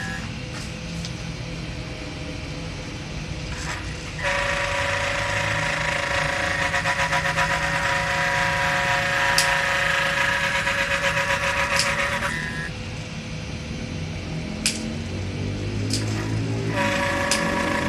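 High-speed engraving rotary tool (mesin grafir) whining as it cuts holes in a plastic button box, with a fast pulsing in the tone. It grows louder and harsher from about four seconds in to about twelve seconds, drops back, and picks up again near the end, with a few sharp clicks in between.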